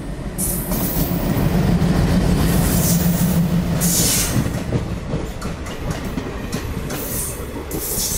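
Diesel locomotive passing close by, its engine's low drone loudest in the first few seconds. Then its passenger coaches roll past, wheels clicking rapidly over rail joints, with a few short high screeches and hisses.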